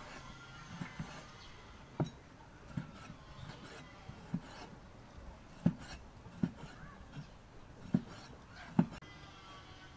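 A cleaver cutting pieces of pig stomach on a wooden chopping board: about ten sharp, irregular knocks of the blade on the wood, roughly one a second, with the loudest strikes in the second half.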